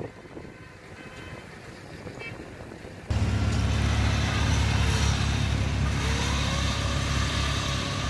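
Faint outdoor background for about three seconds, then a steady low engine drone starts abruptly and holds: a Kubota PRO688Q combine harvester's diesel engine running.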